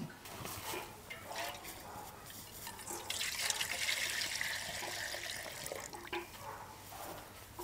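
Water running and splashing, loudest for about three seconds in the middle, with a few light knocks before it.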